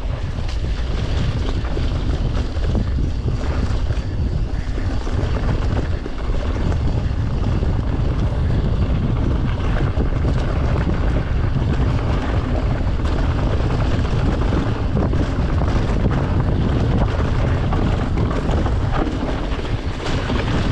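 Mountain bike riding down a rough trail: a steady rush of wind on the microphone over the low rumble of the tyres, with frequent small rattles and knocks from the bike.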